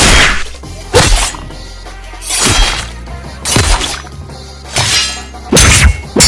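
A string of anime-style combat sound effects, sharp swishes and impact hits, about one a second and coming faster near the end, over a steady low music bed.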